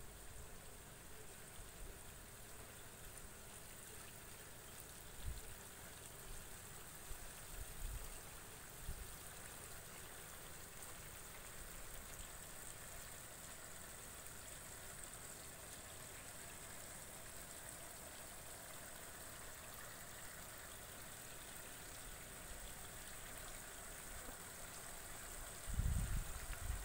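Water trickling steadily through hydroponic lettuce channels, a faint even hiss, with a few low bumps on the microphone about five, eight and nine seconds in and a louder rumble of bumps near the end.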